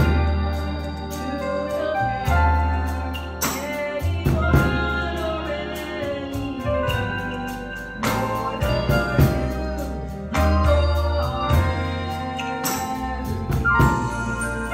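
Gospel music: amplified organ playing with deep held bass notes while a woman sings a solo through a microphone.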